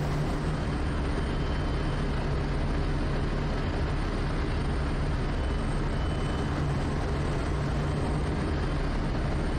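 Quest Kodiak's single turboprop engine and propeller droning steadily at approach power on final, with no change in pitch.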